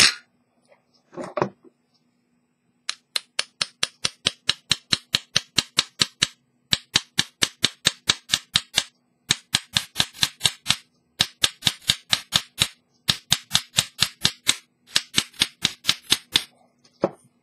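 Sharp mechanical clicks from an antique English fusee pocket watch, about five a second, in runs of one to two seconds with short pauses between them. The runs start a few seconds in, after a couple of louder knocks near the start.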